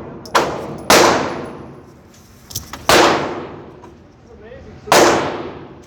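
Three pistol shots about two seconds apart, each a sharp crack followed by a long echoing decay.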